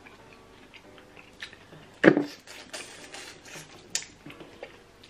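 Eating noises over a seafood meal: scattered small clicks of shells and cutlery, a sharp knock about two seconds in, then a short hissing, sucking sound.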